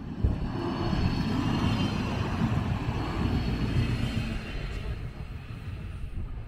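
A vehicle passing close by: a loud rumbling that swells up within the first second, holds for about four seconds and then fades away.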